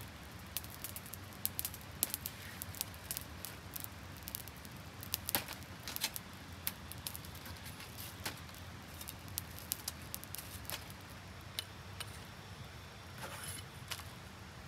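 Scattered light, irregular clicks and rustles from spiky chestnut burrs being handled in a woven bamboo basket and worked with a knife, with a small wood fire crackling alongside.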